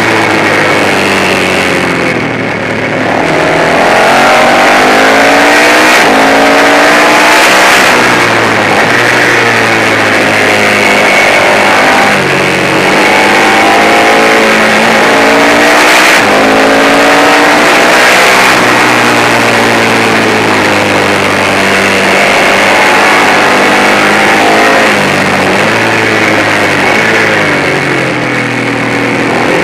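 Manx Norton single-cylinder racing engine at full race revs, the pitch climbing steeply again and again and breaking off as it is shifted and slowed for corners, over a constant rush of wind and road noise.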